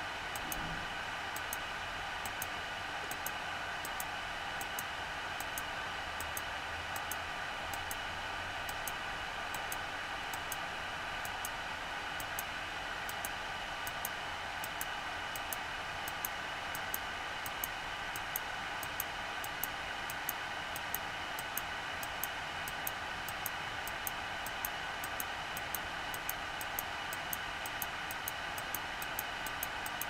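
Steady machine hum made of several steady tones, with a fast, regular ticking running through it.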